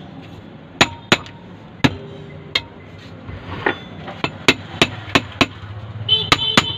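Hammer striking a truck starter motor's metal body to knock its parts into seat during reassembly: about a dozen sharp metallic knocks at uneven intervals, some ringing briefly.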